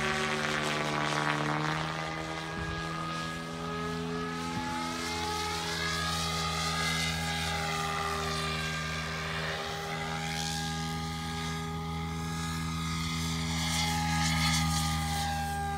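Radio-controlled model helicopter flying aerobatics: a steady whine of motor and rotor whose pitch slides up and down as it manoeuvres, with a constant low hum under it.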